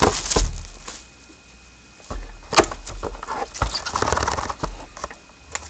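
A cardboard trading-card box being opened and handled: rustling and scraping with irregular clicks, a sharp snap about two and a half seconds in, and a short lull early on.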